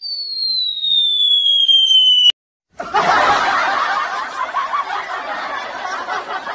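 A cartoon-style falling whistle, one tone sliding down for about two seconds, cut off with a click. After a short gap comes canned audience laughter, many voices laughing together.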